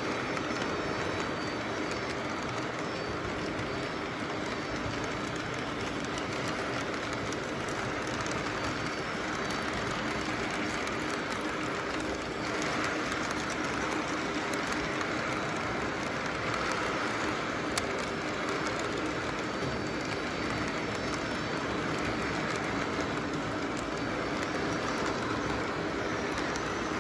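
O-gauge model intermodal train's cars rolling steadily past on the track, a continuous rattle of metal wheels on rail.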